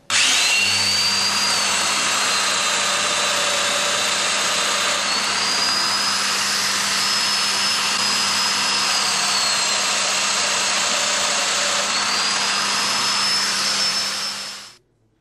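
Festool Domino DF 500 joiner's motor running steadily with a high whine. The whine's pitch sags and recovers twice. It starts abruptly and stops near the end.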